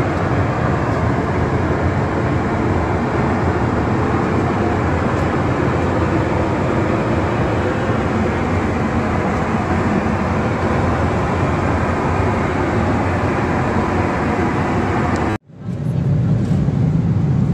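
Steady cabin noise of a Boeing 777-300ER airliner in flight, a constant rush of engine and airflow heard inside the lavatory. It cuts out for a moment near the end and comes back with a stronger low hum.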